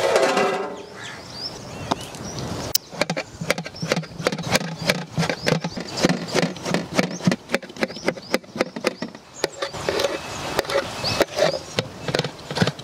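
An aluminium pot lid clinks and rings briefly at the start. Then a knife chops tomatoes on a metal plate: a long run of quick, evenly spaced cutting strokes, about three a second.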